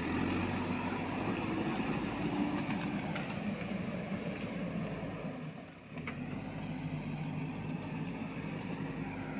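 JCB backhoe loader's diesel engine running steadily while the machine clears fallen branches off the road with its front bucket. The engine sound drops briefly a little past the middle, then picks up again.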